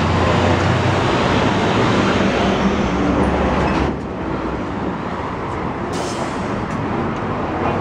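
Busy city street traffic: a steady wash of passing vehicles, with a low engine rumble that drops away about four seconds in.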